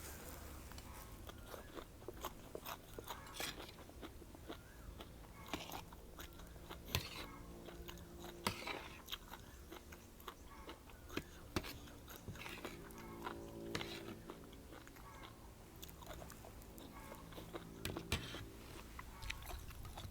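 A person chewing and biting food close to the microphone, with irregular crunches and wet mouth clicks.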